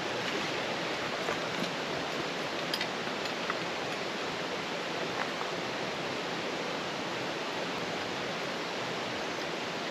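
Steady rush of fast-flowing water from a mountain stream, with a few faint ticks over it.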